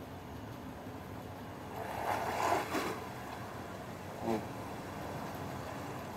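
Steady wash of sea surf and wind. A soft voice comes in briefly about two seconds in, and a short vocal sound follows a little after four seconds.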